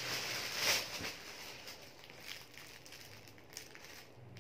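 Clear plastic bag crinkling as a cake is lifted out of it, loudest in about the first second, then dying down to faint rustles.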